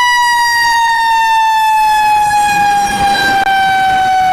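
Electronic siren of a toy fire ladder truck: one long, loud wail whose pitch slides slowly downward.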